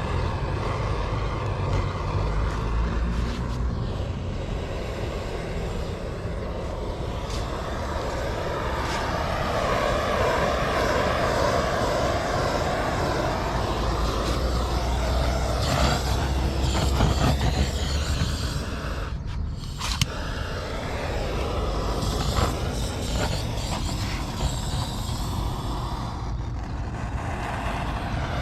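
Gas torch lighter's flame burning with a steady rushing hiss and low rumble as it is played over faded black plastic trim to restore its colour.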